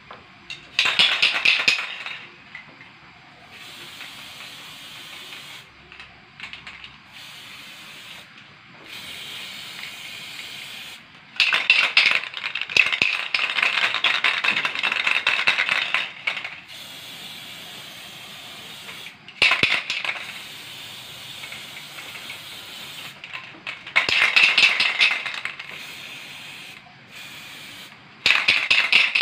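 Aerosol spray-paint can hissing in bursts: five sprays, most short, one lasting about five seconds.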